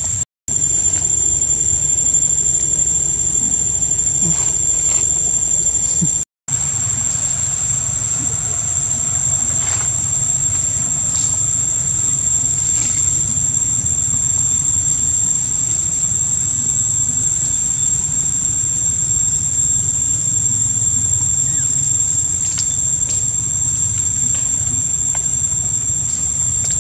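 A steady, loud high-pitched whine over a low rumble, cutting out completely twice in the first few seconds.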